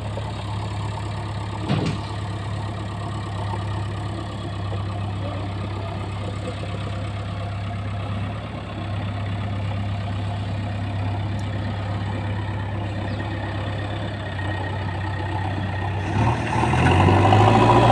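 Heavy diesel engine idling steadily, with one sharp knock about two seconds in. Near the end the engine picks up and runs louder.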